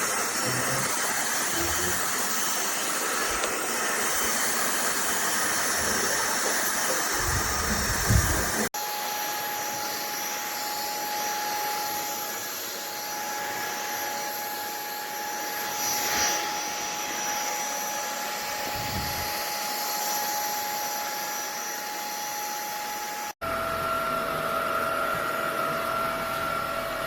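SMOTURE cordless stick vacuum with a brushless motor running steadily: a rushing airflow noise with a thin motor whine. The sound is cut off abruptly twice, and the whine's pitch changes after each cut.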